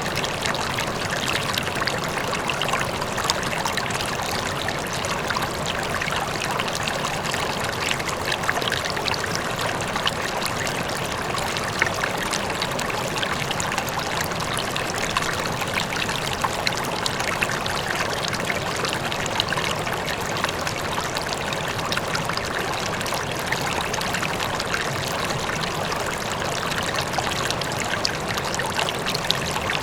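River flowing, a steady, continuous rush of water with a constant fine splashing and trickling.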